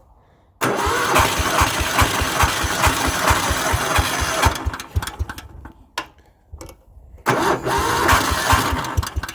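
1978 Kawasaki three-wheeler's engine starting on partial choke. It catches about half a second in and runs a few seconds, then fades and stutters nearly to a stop around the middle. It fires again and keeps running near the end.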